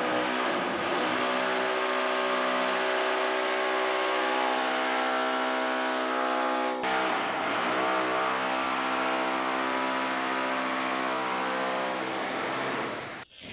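An engine or motor running steadily with a strong hum. It cuts out briefly about seven seconds in, then resumes with a short dip in pitch.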